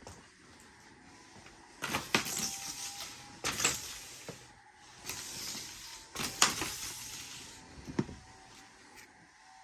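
Handling noise: several short knocks and rustles, most in quick pairs, over a faint steady hum.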